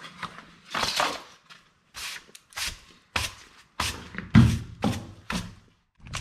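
Push broom sweeping a concrete door sill in short, quick strokes, roughly eight of them about half a second apart, one with a heavier knock.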